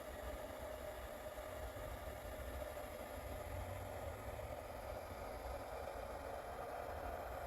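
Steady background hiss with a low hum underneath and a faint steady tone, unchanging throughout: room or recording noise.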